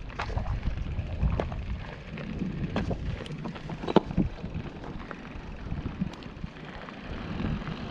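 Wind rushing over the microphone while riding a mountain bike, a steady low rumble with scattered sharp clicks and knocks from the bike over the trail; the loudest knock comes about four seconds in.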